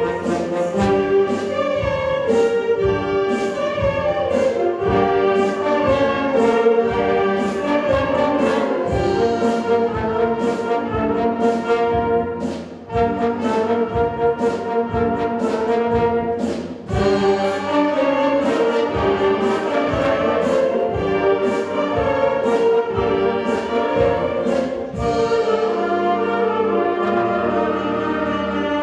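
Wind band of woodwinds and brass (saxophones, flutes, clarinets, euphoniums) playing a piece with a steady beat of about two strokes a second. There are brief breaks about 13 and 17 seconds in.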